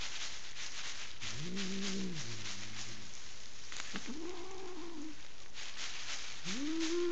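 An angry domestic cat gives three low, drawn-out yowls, each about a second long, rising and falling in pitch. Between and under them comes the crackle of plastic sheeting.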